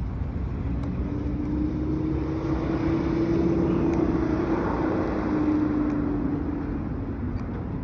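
An engine running with a steady hum, rising a little in pitch and loudness towards the middle, then easing back.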